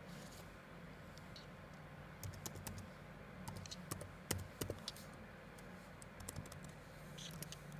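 Computer keyboard keys being typed: short, irregular runs of faint clicks, as a file name is keyed in, over a faint steady low hum.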